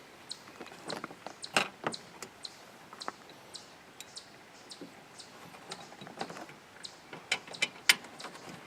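Irregular light clicks and taps of metal parts being handled as a replacement hood latch is worked into place, with one sharper click near the end.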